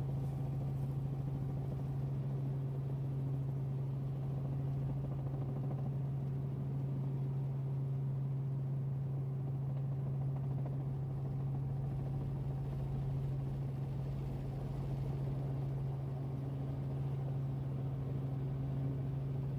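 Robinson R44 Raven II helicopter's six-cylinder piston engine and rotors running at a steady pitch, heard from inside the cabin while taxiing to the pad after landing.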